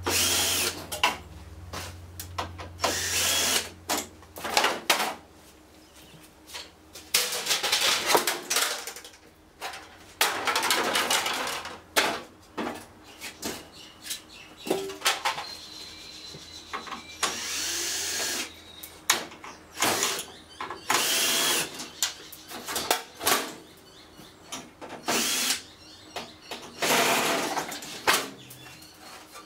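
Cordless drill-driver running in repeated short bursts, each a second or two, as it drives screws out of a copier finisher's covers, with clicks and knocks between the runs.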